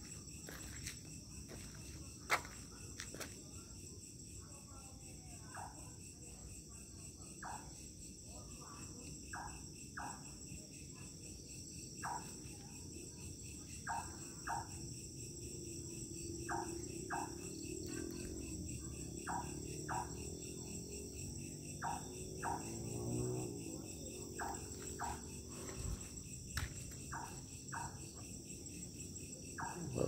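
Crickets chirring steadily at night. Short, mid-pitched knocking notes come through it about once a second, often in pairs.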